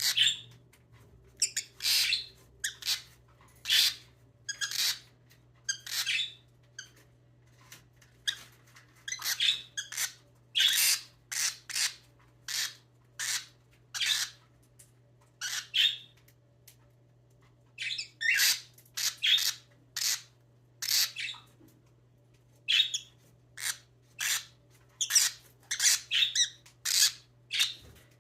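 Young lovebirds calling: dozens of short, shrill chirps and squawks, often in quick pairs or triplets, with brief pauses between runs.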